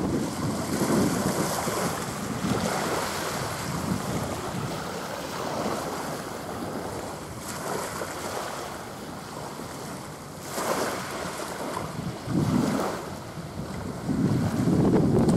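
Wind buffeting the microphone over small waves washing on the shore, with gusts swelling louder near the end.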